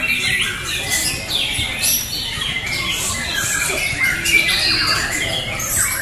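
Many caged white-rumped shamas (murai batu) singing at once: a dense, unbroken chorus of overlapping high whistles, chirps and fast trills.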